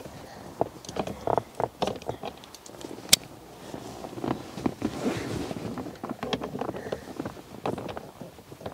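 Scattered clicks, knocks and rustling of hand work on a car's steering wheel as the breaker bar and socket come off the loosened centre nut and the wheel is pulled at by hand. One sharp click about three seconds in is the loudest.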